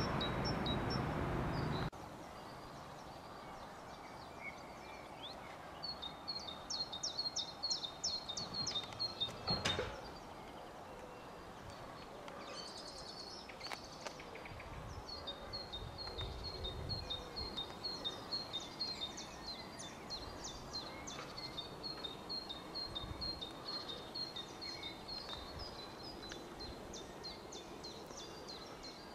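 Small songbirds chirping in long runs of quick, repeated high notes over a quiet outdoor background. For the first two seconds a loud train's running noise covers them, and it cuts off abruptly.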